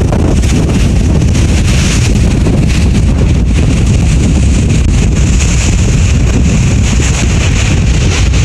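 Strong wind buffeting the microphone in a loud, steady rumble, with Pacific Ocean surf washing underneath.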